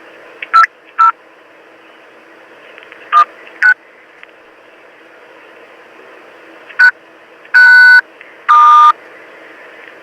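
Touch-tone (DTMF) keypad tones on a recorded answering-machine message, heard over the hiss of a narrow telephone line. Five short key beeps come spread through the first seven seconds, then two longer, louder tones near the end.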